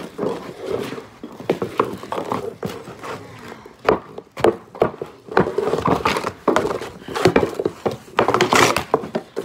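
Hockey sticks clacking on the ice and against the puck in irregular sharp knocks, over the scrape of skate blades on ice.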